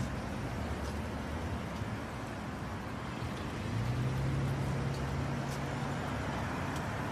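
Street traffic noise: a steady rumble of road vehicles, with a low engine hum joining about four seconds in.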